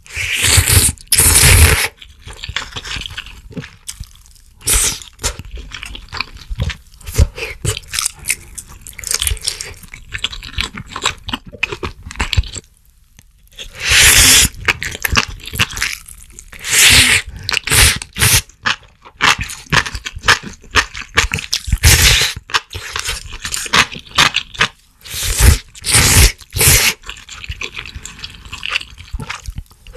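Close-miked slurping of noodles from a spicy broth, in loud bursts a second or two long several times, with wet chewing in between.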